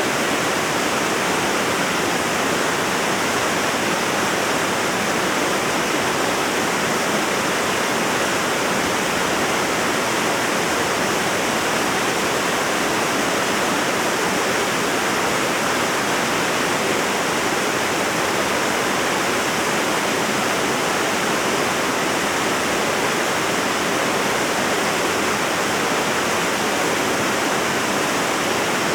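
Waterfall of about 30 to 40 feet, several cascades pouring down into a pool: a steady, loud rush of falling water.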